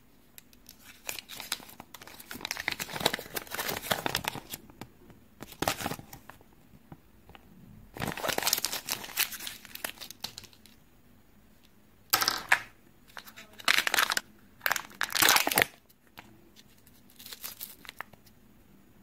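Kinder Joy egg packaging crinkling and tearing as it is handled and opened. There is a long stretch of crinkling in the first few seconds and another around the middle, then several short bursts with quiet gaps between.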